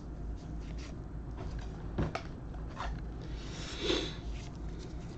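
Trading cards being handled and slid past one another, with a few light clicks and a short rustle about three and a half seconds in, over a steady low hum.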